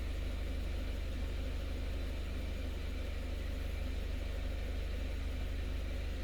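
Subaru Levorg's flat-four engine idling, a steady low hum heard inside the cabin.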